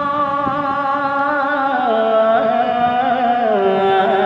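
Naat singer holding a long wordless sung note, unaccompanied in style, that steps down in pitch twice: once about halfway through and again near the end.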